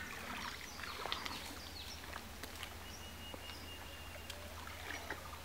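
Outdoor pond-side ambience: scattered short bird chirps over a steady low hum, with faint splashes and clicks from men wading in shallow water.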